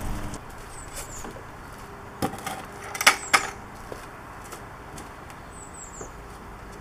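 A few sharp knocks and clicks, the loudest pair about three seconds in, over a quiet background.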